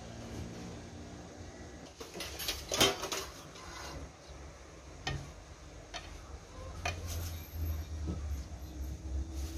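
Hands rubbing and breaking up steamed couscous grains in a glazed clay dish, with scattered clinks and knocks against the dish, a cluster of them a little over two seconds in. This is the hand-separating of the couscous between steamings, after it has been sprinkled with salted water.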